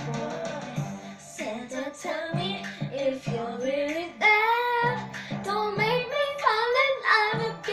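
A young girl singing a slow pop song, her melody gliding and held on long notes, over a low instrumental accompaniment.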